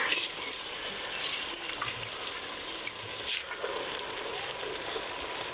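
Washed, wet rice being tipped into a hot pot of chicken, lentils and spices frying in mustard oil: a steady rushing hiss of the pour and sizzle, with a sharp click about three seconds in.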